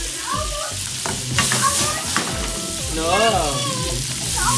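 Sliced onions and tomatoes sizzling in a frying pan as they are stirred with a wooden spatula. A short wavering tone sounds in the background about three seconds in.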